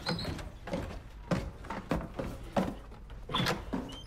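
Footsteps going down a wooden cellar ladder through a floor hatch: a string of knocks on the rungs roughly every half second or so, with a couple of short squeaks.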